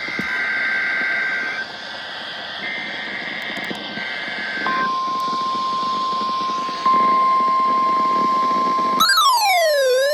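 NOAA Weather Radio emergency alert signal over radio static: three bursts of two-tone SAME data, then the steady 1050 Hz warning alarm tone starts about halfway through. Near the end a second tone swoops down and back up over the alarm tone.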